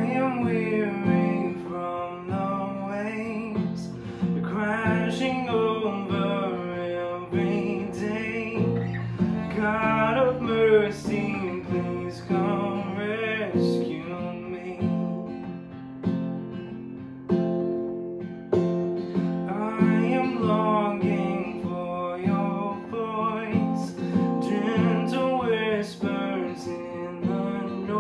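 A man singing a worship song, accompanying himself on a strummed acoustic guitar, in phrases with short pauses between them.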